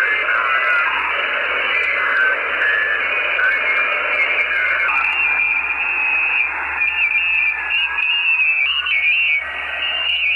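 Shortwave radio receiver hissing with static as it scans across frequencies. From about halfway through, short whistling tones step up and down in pitch through the hiss.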